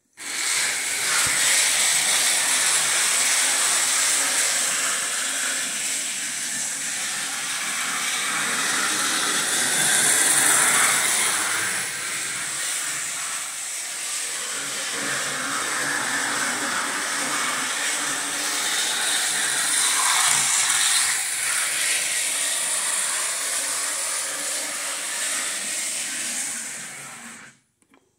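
Lionel Rock Island switcher model locomotive running on the layout's track under transformer power: a steady hissing, rumbling run that starts suddenly as the throttle is turned up and cuts off abruptly shortly before the end.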